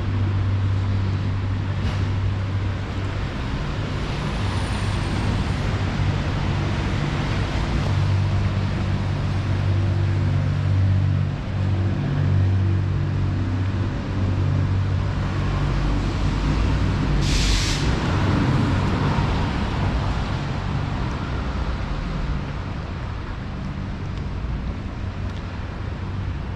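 A heavy vehicle's engine idling with a steady low hum. About two-thirds of the way through there is one short, sharp hiss of air, as from air brakes.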